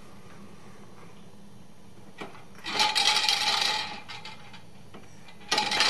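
Spinning wheel toy on a baby activity center turned by hand, rattling and clattering in two bursts of about a second each, the second near the end.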